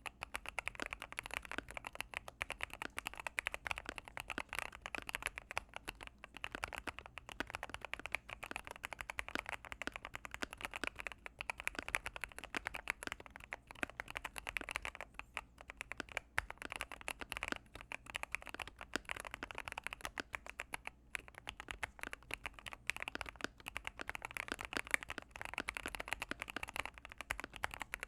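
Mechanical keyboard with Gateron Pro Yellow linear switches being typed on steadily and fast, a continuous run of keystroke clacks with a few brief pauses.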